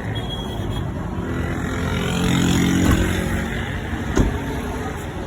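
A motor vehicle's engine hum that swells and fades over a couple of seconds, over steady background noise, with two sharp knocks about a second apart near the middle.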